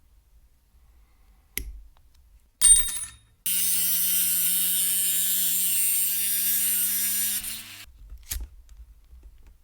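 Two clicks, then a small electric motor runs steadily with a hum and a hiss for about four seconds and cuts off suddenly, followed by one more click.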